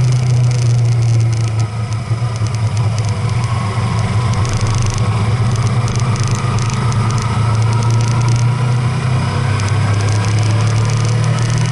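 Car engine running with a steady low drone while driving, with road noise and faint light rattles over it.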